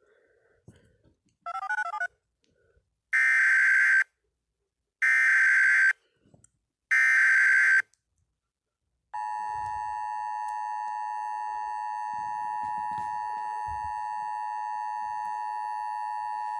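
Emergency Alert System signalling: three loud, harsh digital data bursts about a second apart, then the two-tone attention signal, a steady dual-pitched tone held for about eight seconds, that precedes the spoken alert. A short warbling beep comes about one and a half seconds in.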